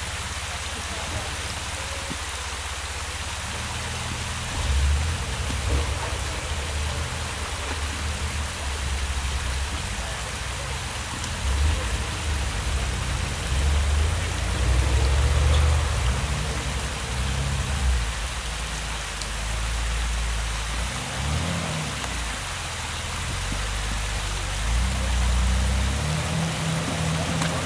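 Steady rush of water from a creek waterfall, with a vehicle engine's low rumble rising and falling from about five seconds in.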